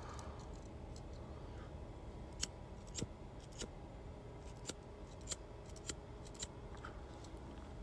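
A lighter clicked again and again to light a joint: about eight sharp clicks, roughly half a second apart, starting a couple of seconds in.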